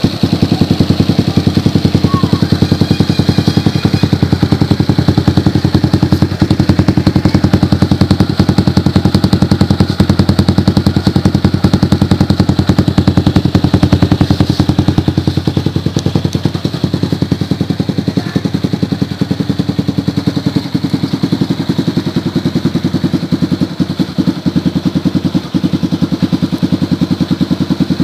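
Yamaha Jupiter MX motorcycle's single-cylinder four-stroke engine idling steadily through an aftermarket replica Akrapovic exhaust. It gives a loud, even train of rapid exhaust pulses.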